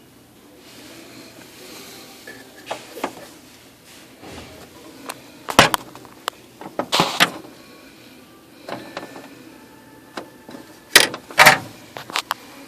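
Oki MB480 printer's paper-feed mechanism grinding and clunking in short, loud bursts several times as it jams.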